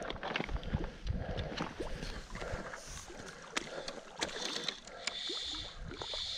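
Shallow stream water splashing and gurgling over stones, with scattered light clicks and knocks throughout.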